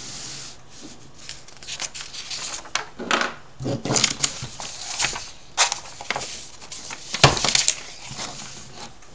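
Sheets of printed exam paper being handled and turned over: a run of irregular crinkling rustles and sharp paper crackles, loudest about seven seconds in.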